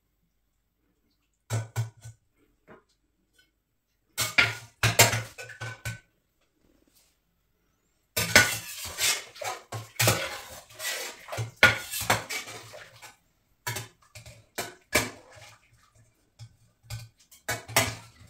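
Metal slotted spoon knocking and scraping against a stainless steel cooking pot as meat is lifted out. The sound comes in bursts of clinks and scrapes and is busiest in the middle stretch.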